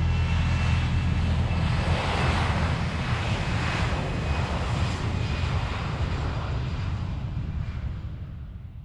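Aircraft flying past: a rush of engine noise with a heavy low rumble, fullest a few seconds in, then fading away near the end.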